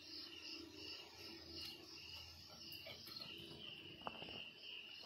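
Faint insect chirping in an even, repeating pulse, about two to three chirps a second, with a few small clicks.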